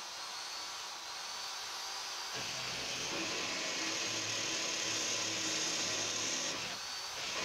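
Corded electric hand drill in a drill-press stand, running on slow speed with an 18 mm bit drilling into thin sheet steel. About two and a half seconds in the sound fills out and brightens as the bit cuts, and it dips briefly shortly before the end.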